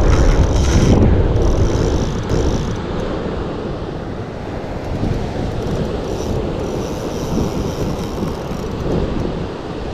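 Wind buffeting the microphone over breaking surf, loudest for about the first two seconds and then steady.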